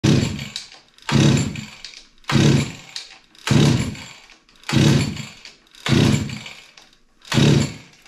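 A 49cc two-stroke mini bike engine being pull-started again and again: seven pulls a little over a second apart, each a short burst that dies away without the engine catching.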